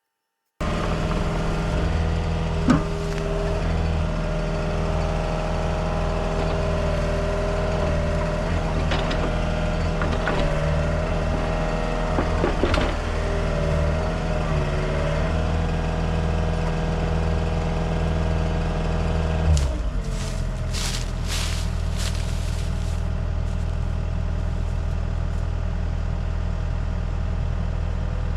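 Heavy equipment engine running steadily, with a few sharp knocks. About twenty seconds in, the engine's note drops to a lower, steady run.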